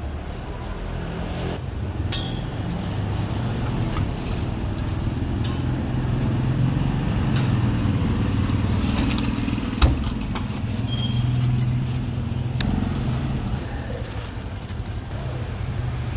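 Steady street traffic rumble with motorbikes passing, and a few sharp clinks, the strongest about ten seconds in.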